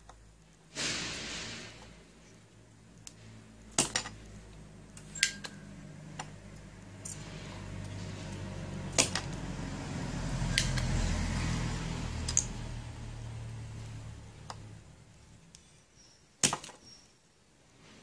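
Spring-loaded desoldering pump (solder sucker) snapping as its plunger is released to draw molten solder off the USB port's joints: several sharp clicks a few seconds apart, over a low steady hum.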